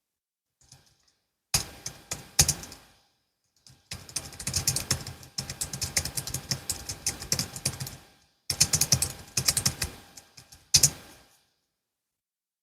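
Typing on a Logitech MX Keys S low-profile scissor-switch keyboard: short bursts of keystrokes, a few seconds of fast continuous typing, then more bursts and a last single keystroke before the typing stops.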